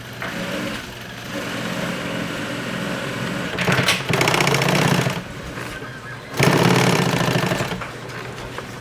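Sewing machine stitching at speed in two loud runs of a second or two each, with quieter running and handling in between.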